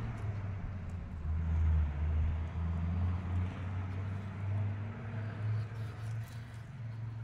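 Steady low hum of a 1/18-scale RC rock crawler's electric motor and geartrain at low throttle, its pitch shifting slightly as the throttle changes. A few faint ticks come near the end.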